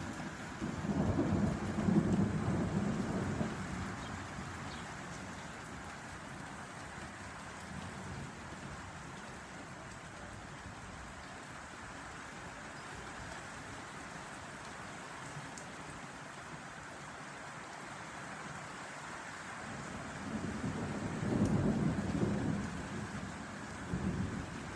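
Steady rain falling through a thunderstorm, with a roll of thunder rumbling for a few seconds about half a second in and another near the end.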